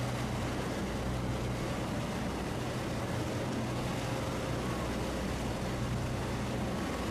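Motorboat engine running steadily with a low, even hum, over a haze of wind and water noise.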